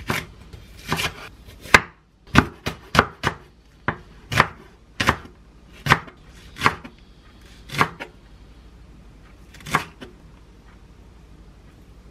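Chef's knife chopping the white part of a Korean green onion on a wooden cutting board: more than a dozen sharp, irregular knocks of the blade through the onion onto the wood, about half a second apart at first, then sparser, with the last one near ten seconds in.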